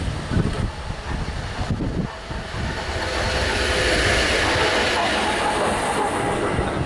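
ČD Cargo class 130 ('Uhelka') Škoda electric locomotive running light past, its wheel and running noise swelling from about two and a half seconds in into a steady rush with a faint whine, then easing slightly near the end.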